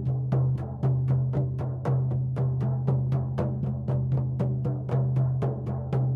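Shamanic drum beaten in a steady, even rhythm of about four beats a second, each stroke with a deep ringing boom: the repetitive drumming used to carry a shamanic journey.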